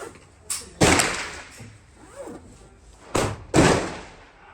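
Gunshots at a shooting range: four sharp reports in two quick pairs, each pair about a third of a second apart, the second shot of each pair louder, each with a short echo trailing off.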